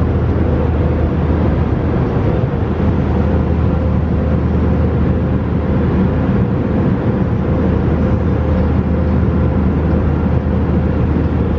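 Steady airliner cabin noise in flight: an even, loud rush of air and jet engine noise with a constant low hum and a faint steady whine.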